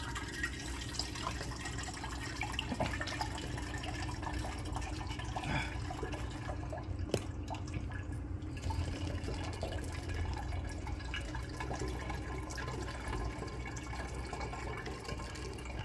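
Fruit juice pouring through a funnel into a glass gallon jug, a steady trickling stream splashing onto the foam building up at the bottom.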